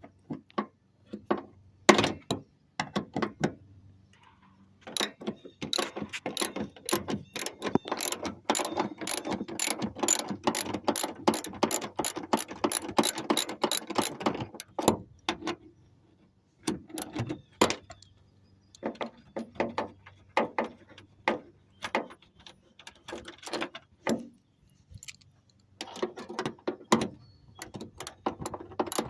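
Ratchet wrench clicking in spells of rapid clicks with short pauses, as two 12 mm bolts holding the sliding door roller bracket are backed out.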